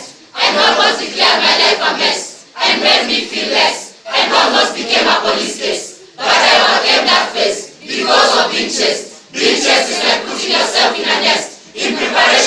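A large group of voices reciting a poem in unison, in phrases of one to two seconds with brief pauses between.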